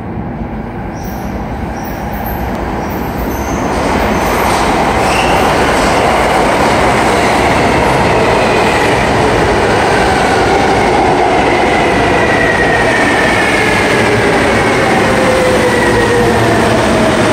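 Kawasaki R143 subway train pulling into an underground station: the noise of its wheels on the rails grows loud over the first four seconds, then holds steady as the cars run past. Through it runs a whine that falls slowly in pitch as the train slows for the stop.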